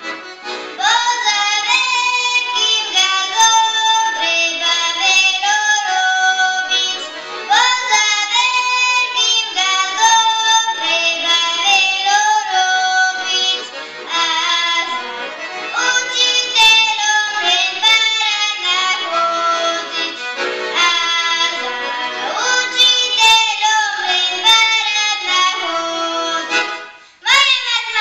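A girl singing, accompanied by a piano accordion. The music breaks off briefly about a second before the end.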